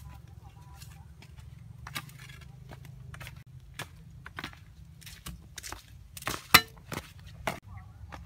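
Footsteps in flip-flops on a dry dirt path, uneven scuffs and clicks about two a second, with one sharp, louder knock about six and a half seconds in and another about a second later. A steady low rumble lies underneath.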